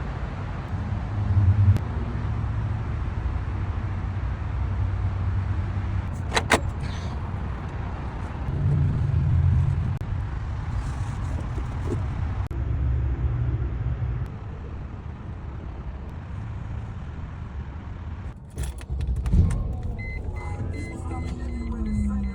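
Mercedes-Benz S500 V8 engine running with an uneven low rumble that swells and sags, which fits the misfires and O2 sensor fault the car has. A brief high squeak comes about a third of the way in, and a few knocks come near the end.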